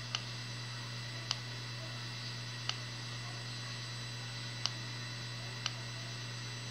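A steady low electrical hum with five sharp, irregularly spaced clicks over it.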